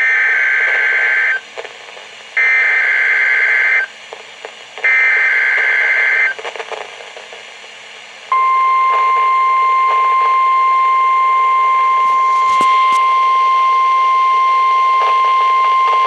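NOAA Weather Radio weekly test played through a weather radio receiver's speaker: three short warbling bursts of SAME data header, each about a second and a half long. About eight seconds in comes the steady single-pitched 1050 Hz warning alert tone, which holds on.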